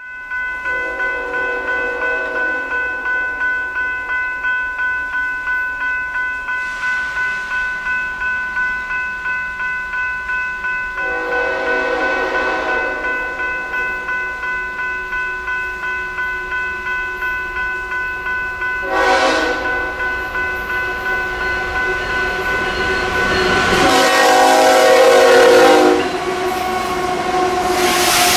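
Grade crossing bell ringing steadily about twice a second while an approaching freight train's diesel locomotive sounds its horn four times: long, long, short, long, the standard grade-crossing warning. Each blast is louder as the train nears, the last long one the loudest.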